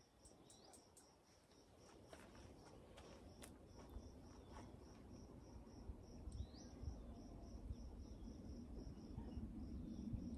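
Faint insect chirping: a high note repeating steadily about four to five times a second over quiet outdoor ambience, with a few soft clicks.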